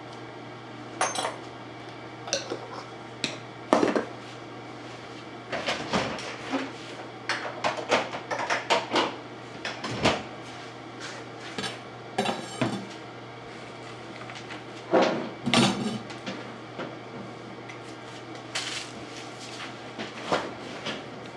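Dishes and a spoon clinking and clattering at irregular intervals as cat food is dished out, over a steady low hum.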